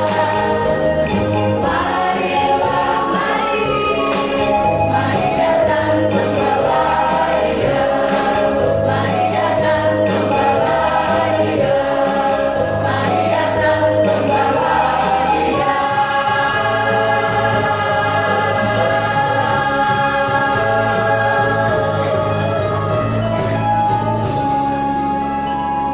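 Church choir singing to the close of a song, settling in the second half onto a long held final chord that fades out at the end.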